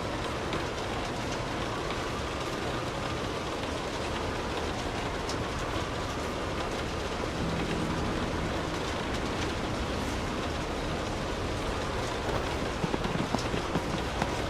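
Steady rainfall hissing. A faint low hum with overtones comes through about halfway, and a quick run of sharp knocks starts near the end.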